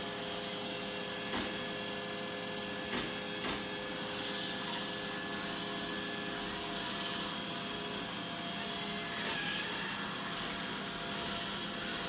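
iRobot Roomba i4 robot vacuum running on a hard floor: a steady motor whine and hiss with a few fixed tones. There are a few short, sharp clicks in the first four seconds.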